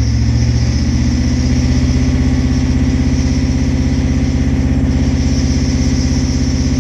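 1994 7.3 L IDI V8 diesel engine idling steadily with a fast, even pulsing beat. The idle is rough.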